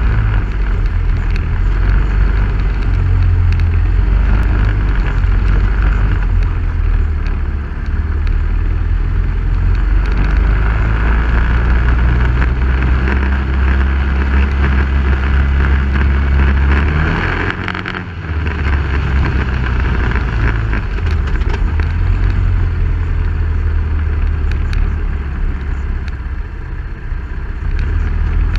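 Off-road vehicle running along a dirt trail, a steady engine note under a heavy low rumble. About two-thirds of the way through, the engine briefly eases off, then picks up again.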